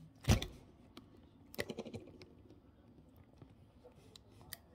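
Orange slime being handled close to the microphone: a loud thump just after the start, a quick cluster of sticky crackling clicks about a second and a half in, and a single sharp click near the end.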